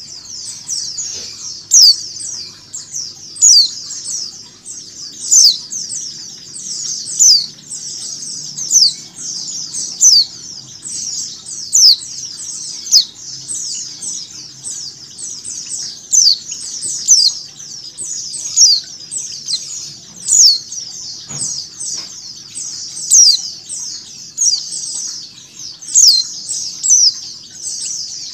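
A dense chorus of many white-eyes (pleci) chirping all at once, made up of quick, falling chirps. A louder, sharp chirp stands out about every one and a half to two seconds.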